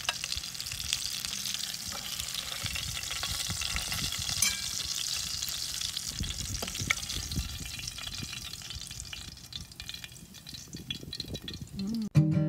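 Hot oil sizzling and crackling in a skillet, with many small crackles, dying down about ten seconds in.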